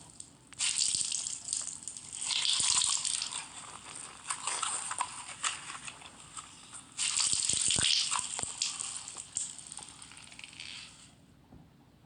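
Foley gore sound effects of wet flesh ripping, tearing and biting: a series of wet, crackling tearing noises with a few sharp snaps, the longest run near the end.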